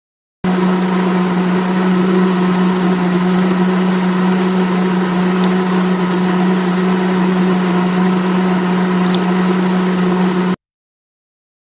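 Small electric motor of a miniature DIY juicer machine running with a steady hum while it pours red juice out of its spout. The hum starts suddenly about half a second in and cuts off abruptly near the end.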